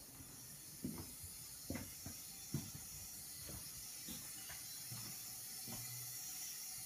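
Soft footsteps on a tile floor, about one a second, stopping near the end, over a steady faint hiss.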